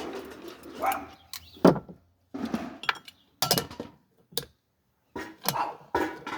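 A series of separate metallic clinks and knocks, about ten of them with short gaps between, as metal parts or pans are handled.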